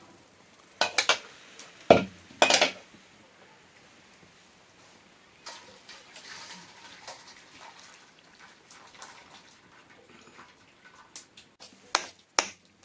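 Metal pots and utensils clattering: a few loud clanks about one to two and a half seconds in, then scattered light clinks, with two sharper knocks near the end.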